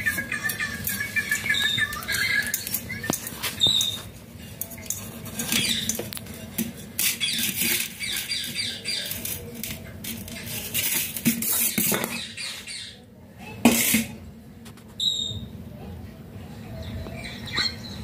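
Rose-ringed parakeet giving a few brief high chirps among many short clicks, taps and scratches.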